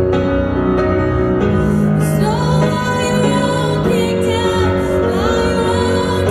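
A woman singing a slow song into a microphone, with long held notes, accompanied by a grand piano, heard live and amplified in a concert hall.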